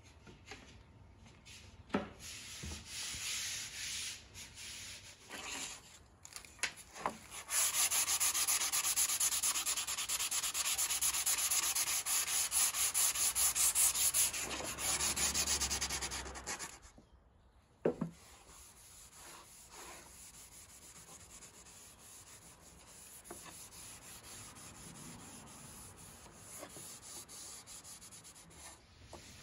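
A wooden board being hand-sanded with sandpaper in rapid back-and-forth strokes, loudest for about nine seconds in the middle. Softer rubbing comes before and after, as a rag wipes finish onto the board, with a few sharp knocks, one just after the sanding stops.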